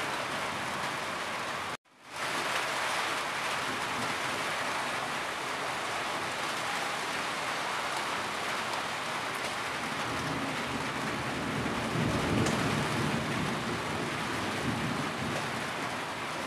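Steady rain drumming on a corrugated tin roof, with runoff dripping from the eaves. It cuts out abruptly about two seconds in and fades straight back. A low rumble rises and falls between about ten and fourteen seconds in.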